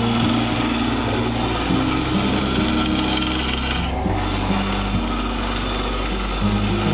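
Bowl gouge cutting into the inside of an olive wood bowl spinning on a wood lathe: a steady rough shearing and rubbing noise as shavings come off. Low background music notes run underneath.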